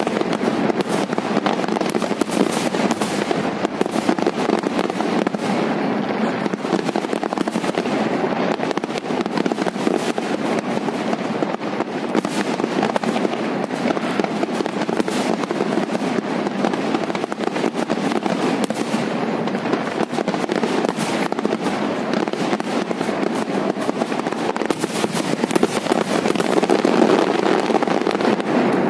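Aerial fireworks display: a dense, unbroken barrage of shell bursts and crackling, swelling louder near the end.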